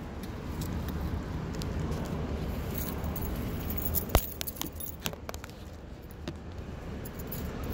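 Handling noise from a phone carried while walking, a steady low rumble with a run of light clicks and clinks around the middle, the sharpest about four seconds in.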